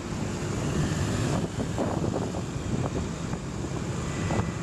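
Wind buffeting the microphone of a camera riding along a road, over the steady rumble of engines and tyres in traffic.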